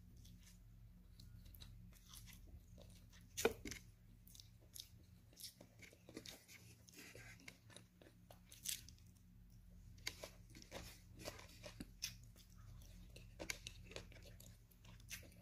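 Close-up chewing and biting of grilled chicken and raw vegetables: a run of short, irregular crunchy clicks and wet mouth sounds, the loudest about three and a half seconds in.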